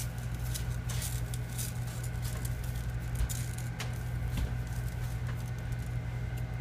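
Dry uncooked rice being pushed around by hand over vegetables in a metal roasting pan: a steady run of fine crackling and pattering grains, over a steady low hum.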